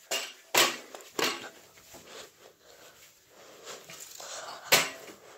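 Handling knocks and bumps as an object is carried and put down: three sharp knocks about half a second apart at the start, quieter rustling, then one louder knock near the end.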